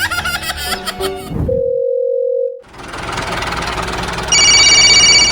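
Background music, then a single steady beep about a second long. After that comes a loud hissing noise, joined about a second before the end by a high, steady multi-tone whine.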